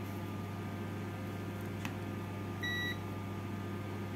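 Multimeter continuity buzzer giving one short, high beep about two and a half seconds in, as the probes test a desoldered diode. A light click comes just before it, over a steady low hum.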